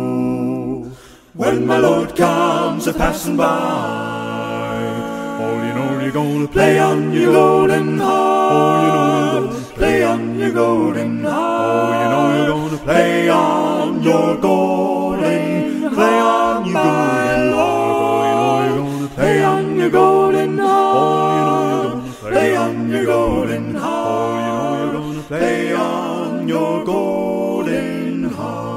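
Gospel vocal quartet singing a cappella in close harmony, a bass voice moving beneath the upper parts, with a short break about a second in.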